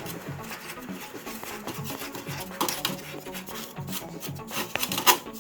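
Dusty computer parts around the processor being wiped clean, a dry, irregular rubbing and scraping with a few sharper scrapes in the second half.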